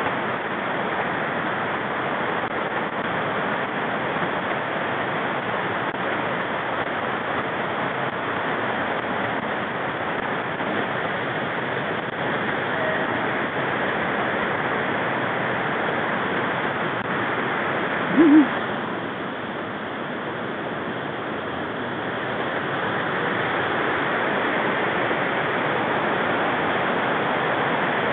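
Steady rushing of a whitewater mountain stream. About eighteen seconds in there is one short, low-pitched hoot-like sound.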